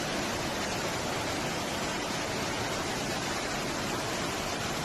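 Steady, unbroken rushing of water in a flash flood, an even hiss-like noise with no pauses.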